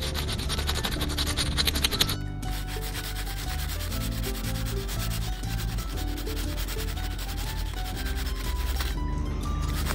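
Paper cut-out makeup brush rubbed quickly back and forth over paper, a dry scratchy rubbing, densest and loudest for the first two seconds, then fainter. Quiet background music with a simple stepping melody runs under it from about two seconds in.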